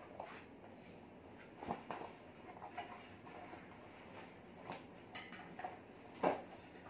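A foldable mountain-bike tyre being worked onto its rim by hand: faint rubbing and scattered clicks of the rubber bead against the rim, with a sharper click near the end.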